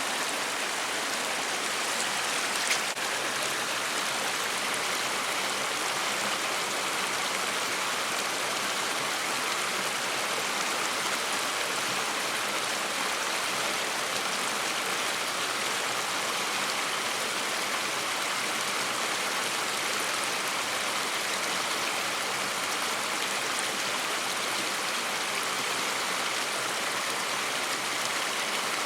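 Steady rushing of flowing water in a stream channel, even throughout, with one brief click about 3 seconds in.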